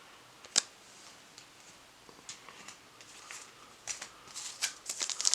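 Faint handling of trading cards and card packs: a sharp click about half a second in, then scattered light taps and rustles that get busier near the end.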